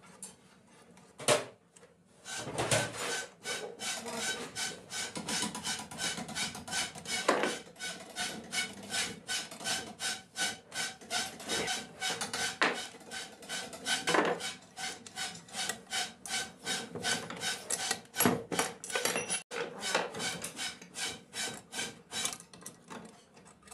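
Rapid metallic clicking and scraping as a screwdriver works on the shafts and fittings of a metal sewing-machine head, several taps a second with a light ring. It starts about two seconds in after one single knock.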